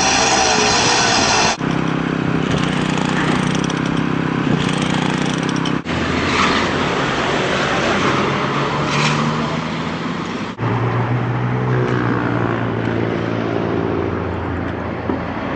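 Engines of road-repair machinery running steadily over a noisy worksite din. The engine note changes abruptly three times as one machine's sound gives way to another's.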